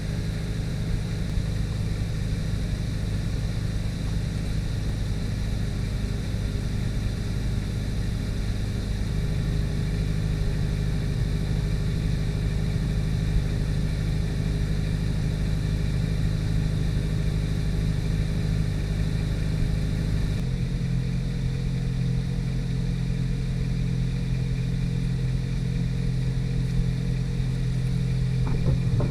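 2004 Ford Focus SVT's 2.0-litre four-cylinder engine idling steadily just after a cold start, its idle note dropping lower about 20 seconds in. The owner hears a noise from the engine bay that he suspects is a bad rod bearing, though he allows it could be an accessory pulley with a failing bearing.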